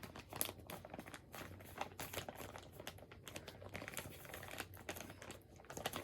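Faint rustling and crinkling, with many small irregular clicks and rustles, as things are handled by hand.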